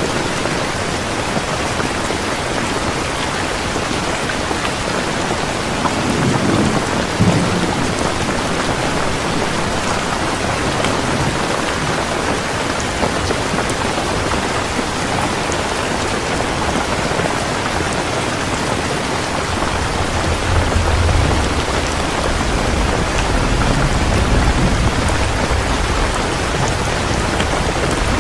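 Heavy rain falling steadily, with low rolls of thunder about six seconds in and again through the last third.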